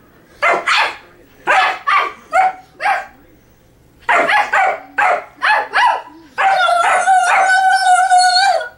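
A dog and a boy barking back and forth at each other: a run of short sharp barks, a pause of about a second, more barks, then one long steady high cry held for about two seconds near the end.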